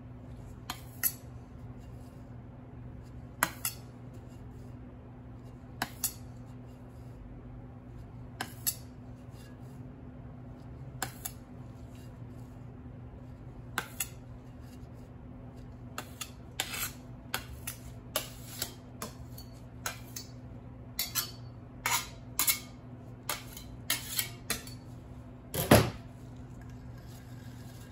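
Light clicks and clinks of cake-decorating utensils against hard surfaces, coming in pairs about every two and a half seconds at first, then more often, with one louder knock near the end. A steady low hum runs underneath.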